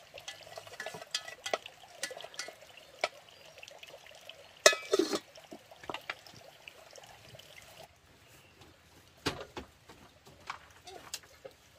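Cooking sounds at a wood-fired stove: light clinks and water sloshing, then a metal pot lid clattering down onto the pot about five seconds in. A few faint knocks follow.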